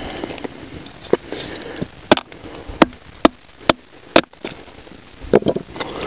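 A run of about six sharp knocks or snaps, unevenly spaced roughly half a second apart, with a few weaker ones near the end.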